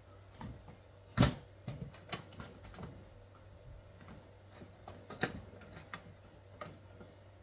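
Scattered clicks and knocks of hard plastic toolbox parts being handled, the loudest about a second in and another around five seconds in.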